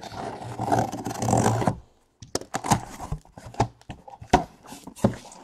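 Packing tape ripped off a cardboard shipping case, a buzzing tear lasting a little under two seconds, then a string of sharp cardboard knocks and rustles as the case is opened and the boxes inside are handled.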